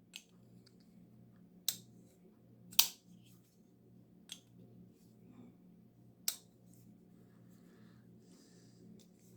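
Damned Designs Oni XL flipper pocket knife being handled: five sharp, well-spaced clicks, the loudest nearly three seconds in, over a faint steady hum.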